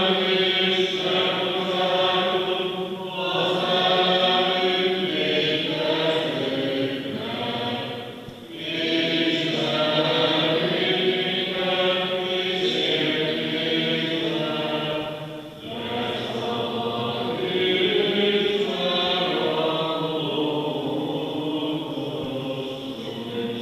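Voices singing Byzantine-rite liturgical chant in long sustained phrases, with short breaks for breath about three, eight and fifteen seconds in.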